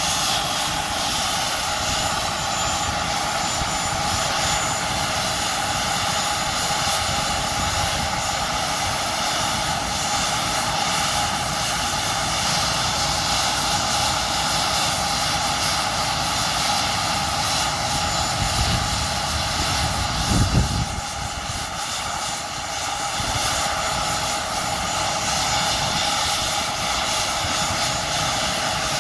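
Air ambulance helicopter's turbine engines running on the ground with the main rotor turning: a steady whine over constant engine and rotor noise. A brief low rumble comes about two-thirds of the way in.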